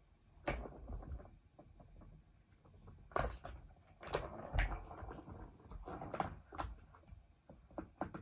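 A Persian cat playing at a plastic ball-track toy on carpet: irregular knocks and clatters of paws and body against the plastic track, with scuffling in between, busiest around the middle.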